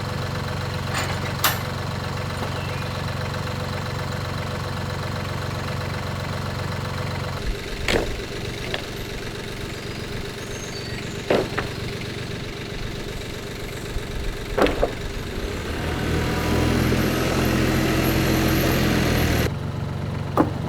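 An engine running steadily, with five sharp knocks or clanks scattered through it. Near the end it gets louder for about three seconds, then cuts off suddenly.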